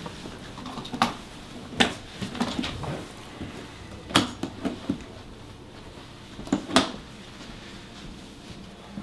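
Scattered sharp knocks and clicks of a hard-shell briefcase being carried, set down and handled as a man sits on a couch, with a quick cluster of clicks about four seconds in and another pair near the end.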